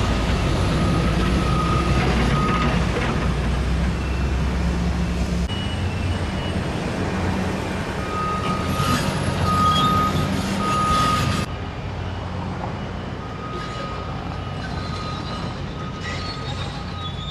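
Vehicle traffic rumble with a reversing alarm beeping repeatedly, clearest about midway through; the background drops abruptly in level about two-thirds of the way in.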